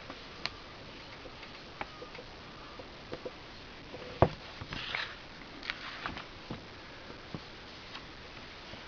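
Pages of a small paper booklet being turned and handled: scattered light clicks and taps, a sharper knock about four seconds in, then a brief paper rustle.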